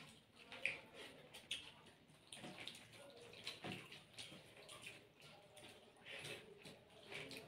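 Faint, irregular wet squelches and smacks of fingers mixing rice with chicken stew, and of mouths chewing it.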